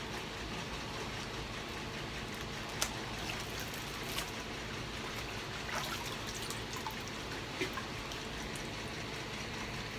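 Water in a hydrographic dip tank splashing and trickling as a tumbler is pushed through the floating film and lifted back out, with a few small splashes and water running off the cup, over a steady background hiss.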